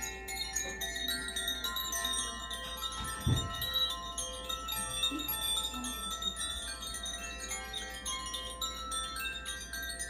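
Makino-style Advance Chimes being struck one note after another, each tone ringing on so that many clear, high notes overlap in a continuous shimmering wash. A brief low thump sounds about three seconds in.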